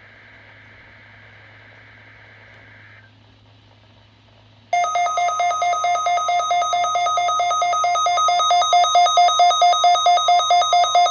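A NOAA weather radio's alert alarm going off: a loud, harsh electronic beep pulsing about four times a second, which starts sharply partway through. It is the receiver's response to an incoming warning-alarm test. Before it, a faint warbling data tone of the broadcast's digital alert header plays for a few seconds.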